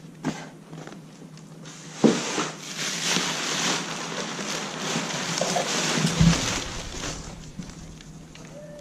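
A cardboard parts box being opened and its packing rustled, with a few sharp knocks and a heavy thump about six seconds in.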